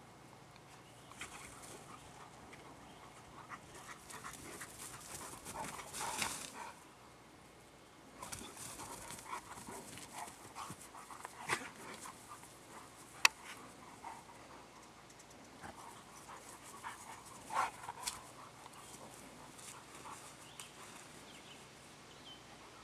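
Dogs panting during rough play on grass, with scattered short noises and one sharp click about 13 seconds in.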